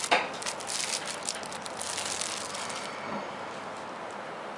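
Rustling and quick crackling clicks of a phone's retail box and packaging being handled and opened by hand, dying away about three seconds in.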